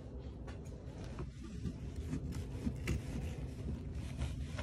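Scissors cutting through the padding of a leg cast, with faint, irregular snips and rubbing.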